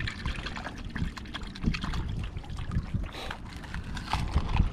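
Shallow seawater splashing and trickling, with irregular low thuds.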